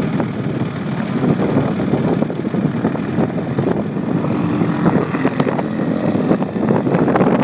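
Racing lawnmower's engine running at speed as it laps the track, a loud, steady engine sound.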